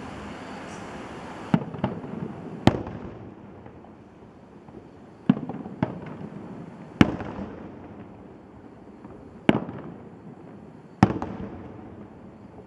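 Aerial fireworks shells bursting: about eight sharp bangs at uneven intervals, each trailing off in a rumbling echo, over a steady background rush that dies down after the first few seconds.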